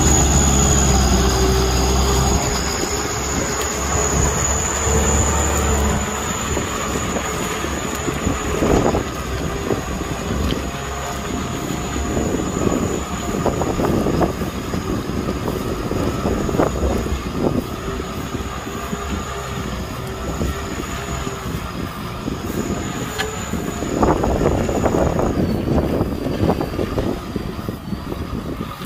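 Kubota M6040 tractor's four-cylinder diesel engine running steadily under load while pulling a disc plow through soil, with irregular clunks and knocks from the plow and a steady high whine over it. Loudest and deepest in the first few seconds as the tractor passes close, then a little quieter as it moves away.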